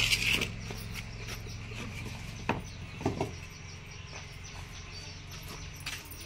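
Fired clay bricks being handled and set down: a brief clatter at the start, a sharp knock about two and a half seconds in and a double knock about half a second later, over a faint low hum that stops at about three seconds.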